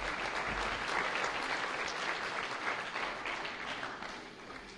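Audience applauding, many hands clapping in a steady patter that slowly fades away near the end.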